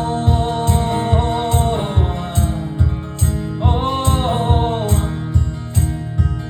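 Live folk song: acoustic guitar strummed to a steady beat of about two strokes a second, with a drawn-out wordless sung "oh" line over it twice.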